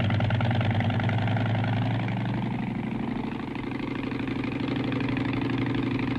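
A piston engine running steadily with a fast, even drone.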